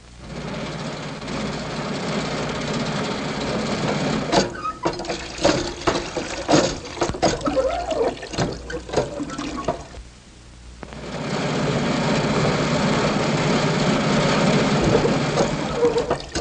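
Sound effect of an old, crippled car engine running, with a steady chugging noise broken by irregular knocks and rattles for several seconds. It drops away about ten seconds in, then runs steadily again.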